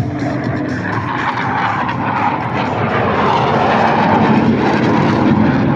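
Jet noise from Blue Angels F/A-18 Super Hornets in flight: a steady rushing noise that grows gradually louder as the jets close in.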